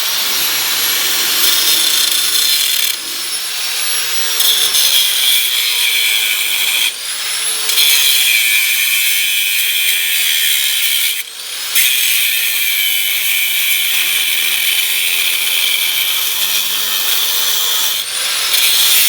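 A power cutting tool cutting through the truck's rusted steel frame, high-pitched and steady. It runs in several stretches with short pauses, rising in pitch as it spins back up after each pause.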